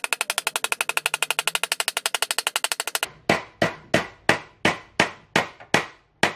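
A claw hammer tapping the teeth of an old steel handsaw against a metal edge. For about three seconds the light taps come fast, about ten a second, then slower, harder strikes follow, about three a second, each with a short metallic ring. The teeth are being hammered to make the saw cut better.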